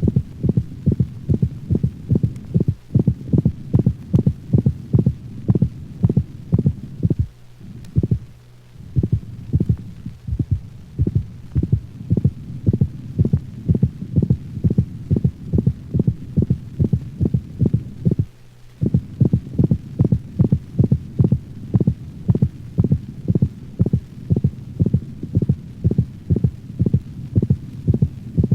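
Stethoscope recording of a dog's heartbeat: a fast, even run of lub-dub heart sounds with a high-pitched systolic click between the first and second sounds, not heard with every beat. In dogs such clicks may come before mitral insufficiency. The run breaks off briefly twice.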